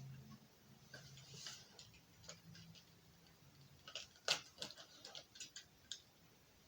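Faint scattered clicks and short rustles of a box being handled and opened by hand, with one sharper click a little past the middle.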